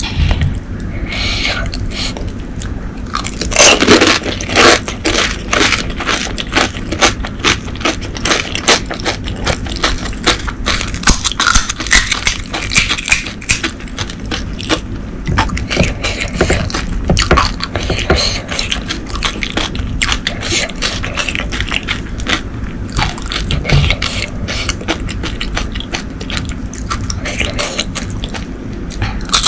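Close-miked eating of pani puri: crisp, hollow fried puri shells crunching and cracking as they are bitten, with wet chewing of the masala filling and spiced water. Sharp crackles come thick and fast throughout, densest a few seconds in and again around the middle.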